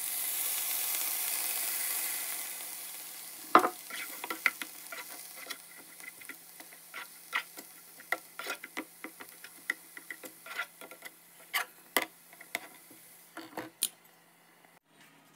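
Water poured into a hot frying pan of couscous and vegetables sizzles loudly, fading after about three seconds. Then a spatula stirs the couscous, clicking and knocking irregularly against the non-stick pan.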